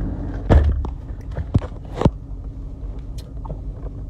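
Steady low rumble inside a Rolls-Royce's cabin. A thump about half a second in and a few sharp clicks over the next second and a half stand out over it.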